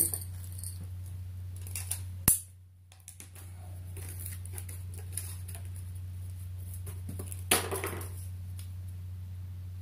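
Zippo Typhoon matches and their pack being handled on a cloth-covered table: a few light clicks as the matches are set down, a sharp click about two seconds in, and a brief rustle near the end as the pack is picked up, over a steady low hum.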